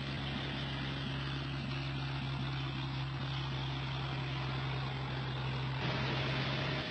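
A light aircraft's engine running steadily on the ground: a constant low hum with a wide rush of noise above it, stopping abruptly just before the end.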